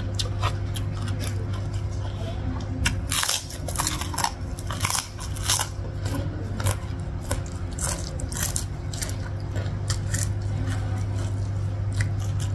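Close-up eating sounds: crunchy bites and chewing of pecal vegetables, rice and fried fish eaten by hand, with many small crackles, loudest a few seconds in, over a steady low hum.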